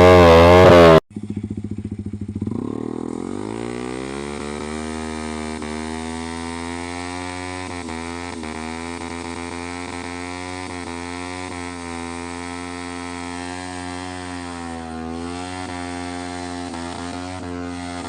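Yamaha MT-15's single-cylinder engine revving hard for a rear-tyre burnout. The loud revving cuts off abruptly about a second in. The revs then climb and hold nearly steady, wavering slightly, while the rear tyre spins.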